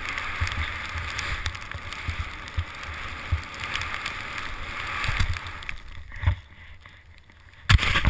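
Skis hissing through deep powder snow, with rushing wind and frequent low bumps on the camera's microphone. The sound drops away for about a second near the end, then a loud burst just before it ends.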